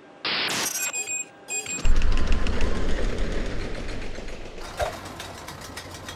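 A short whoosh and a few brief high chime tones. Then a low rumble sets in with a fast, even clacking, like a roller coaster car climbing the chain lift past its anti-rollback ratchet.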